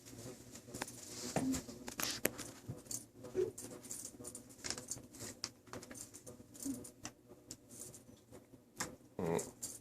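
RagaMuffin kittens at play: scattered light taps, pats and scuffles of small paws and a toy on the floor.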